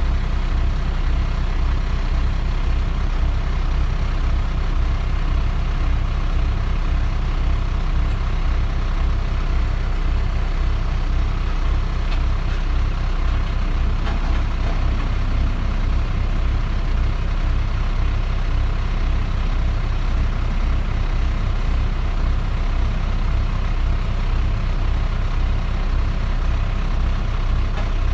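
Loaded dump truck's diesel engine running steadily at low speed, a low rumble with an even pulsing, while the bed is hoisted to chain-spread slag. The engine note shifts slightly about halfway through.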